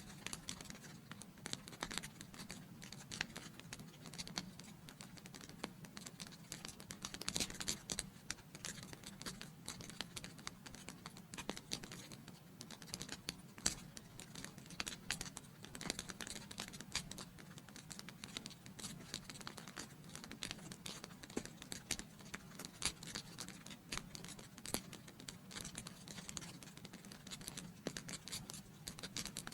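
Wood fire in a fireplace crackling steadily, with irregular sharp pops and snaps over a soft low hiss of flame.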